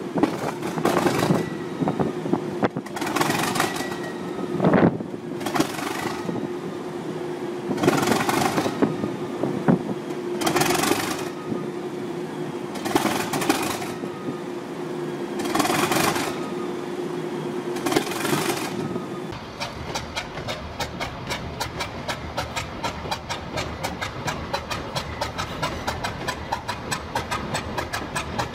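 A British Rail Class 37 diesel locomotive's engine running just after a cold start, with a steady hum and held tone and a loud rushing surge every two to three seconds. About two-thirds of the way in it gives way to a BR Class 50's English Electric 16-cylinder diesel running just after a cold start, with a fast, even beat.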